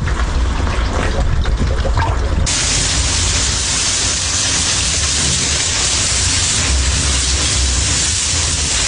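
Water spraying and gushing under pressure in a drain being cleaned, over a steady low machine rumble; the spray hiss gets much louder about two and a half seconds in.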